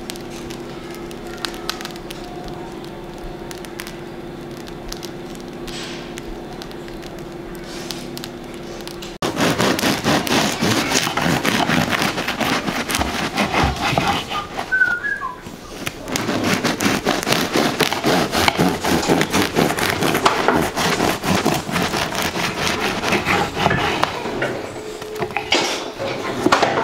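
A crusty English bloomer loaf being cut with a bread knife on a wooden board, its crisp crust crackling densely as the blade saws through. The crackling starts about nine seconds in, after a steady low hum, and eases briefly in the middle.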